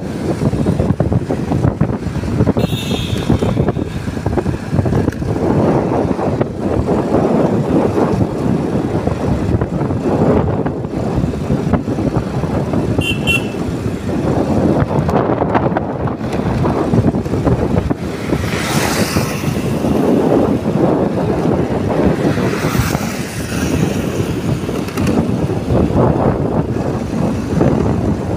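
Continuous rush of wind and road noise from riding a motorbike in traffic. A vehicle horn beeps briefly about three seconds in, and again as a quick double beep about thirteen seconds in. Two swells of hiss come later, likely vehicles passing close by.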